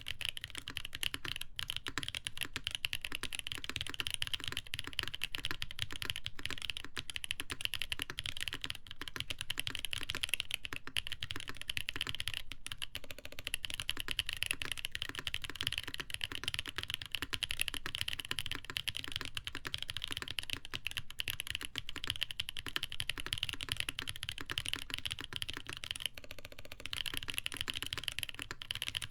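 Continuous fast typing on a mechanical keyboard with lubed Boba U4T tactile switches, a polycarbonate plate, case foam and Cherry-profile ABS and PBT keycaps: a dense run of key clacks, easing off briefly near the end.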